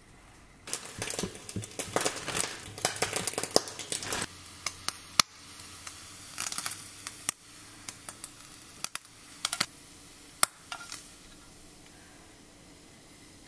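Cooked bacon being lifted and laid onto toast with kitchen tongs: a few seconds of dense crackling and clicking, then scattered sharp clicks and taps from the tongs.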